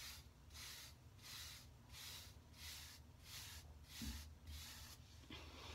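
Faint, even strokes of a hairbrush's bristles through short, close-cropped hair: a soft scratchy swish about every two-thirds of a second, around eight in a row, stopping near the end.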